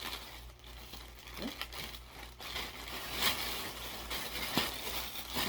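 Packaging rustling and crinkling in irregular bursts as it is handled, with a few sharp clicks.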